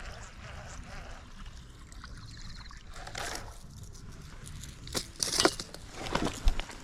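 Water sloshing and trickling at the waterside over a low rumble, then several sharp clicks and knocks in the last couple of seconds, like handling of gear or a fish.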